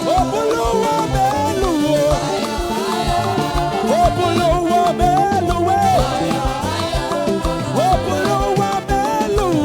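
Upbeat live praise band music with a steady drum beat and melodic lines on keyboard or guitar.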